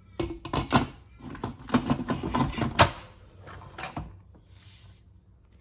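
Instant Pot Duo Nova pressure cooker lid being set on the pot and twisted shut: a string of knocks, scrapes and clicks, the loudest about three seconds in, then quieter handling.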